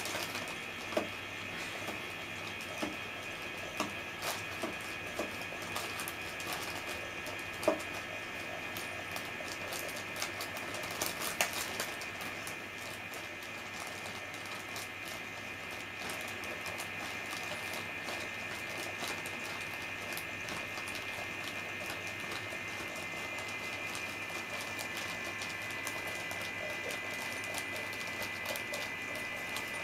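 Steady high-pitched whirr of the small motor inside a crinkly plastic cat toy bag. In roughly the first dozen seconds, light taps and crinkles of the plastic sound out as a cat paws the bag.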